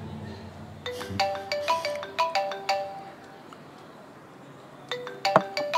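Mobile phone ringtone: a short melody of struck notes plays once, pauses for about two seconds, then starts again.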